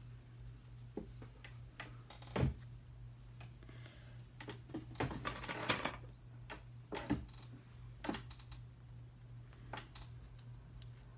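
Hands working long hair, gathering and smoothing it back into a ponytail: scattered soft clicks and rustles, thickest about five to six seconds in, over a steady low hum.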